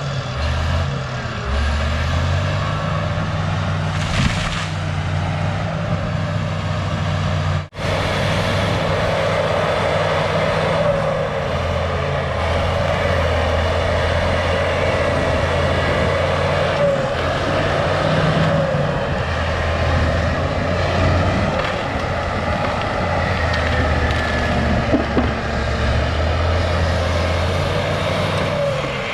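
Cat D6H crawler bulldozer's diesel engine working under load, its pitch shifting up and down as the operator pushes and backs, with track and blade noise over it.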